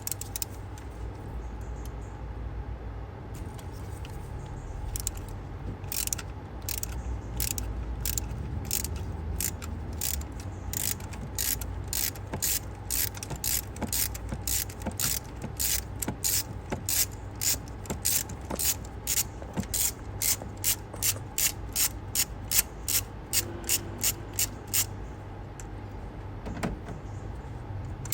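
Ratchet wrench with a spark-plug socket clicking in a steady run of short strokes, about two clicks a second, as a spark plug is unscrewed. The clicks begin a few seconds in and stop shortly before the end.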